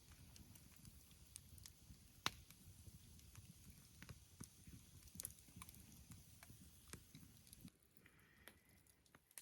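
Wood campfire crackling faintly, with irregular sharp pops, the loudest about two seconds in, over a low rumble that drops away near the end.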